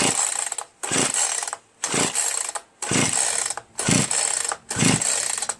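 Poulan Pro PR4218 42cc two-stroke chainsaw being cranked on its recoil starter cord, six pulls about a second apart, each a short whirring rasp, with no firing at all. The engine won't start: it has only about 30–35 psi of compression, which the owner puts down to a badly scored piston, rings and cylinder wall.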